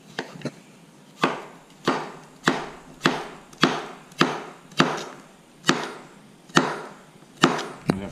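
Kitchen knife chopping a cucumber on a plastic chopping board: about ten evenly spaced cuts, each a sharp knock of the blade on the board with a short crunch through the cucumber.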